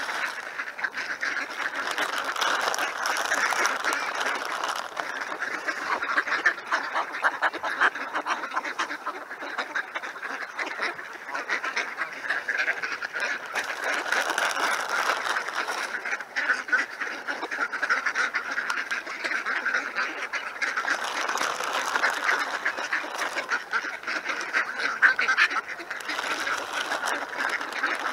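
A flock of ducks quacking continuously, many calls overlapping into a steady chatter.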